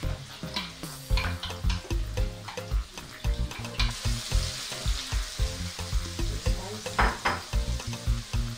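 Blended pepper sauce sizzling in hot oil in a frying pan while a wooden spatula stirs and scrapes it. The sizzling hiss grows louder about halfway through.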